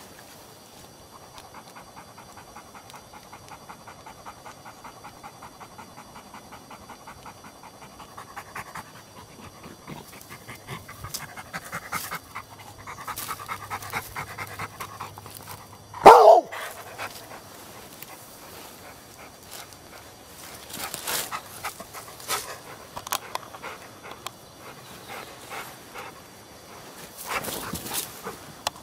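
A black dog panting fast and steadily for the first half. About halfway there is one short, very loud sound, then rustling and snapping in the brush as the dog moves about with a stick.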